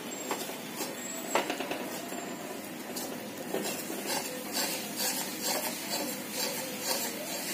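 Metal spatula stirring and scraping gram flour frying in ghee in a metal kadai: irregular scrapes and clinks against the pan, with the ghee sizzling underneath.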